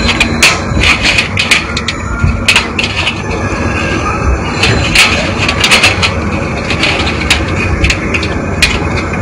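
Irregular sharp clicks, cracks and scraping of a thin metal motherboard I/O shield being pressed and worked into the PC case's rear opening, which a case fan makes hard to seat.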